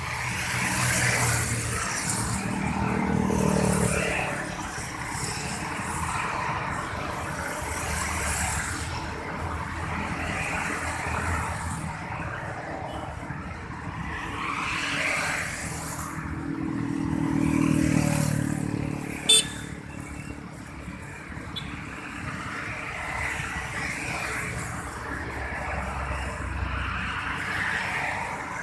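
Road traffic passing close by: a steady rush of vehicles, swelling louder twice as vehicles go past, about three seconds in and again near eighteen seconds. A single short sharp click cuts through shortly after the second pass.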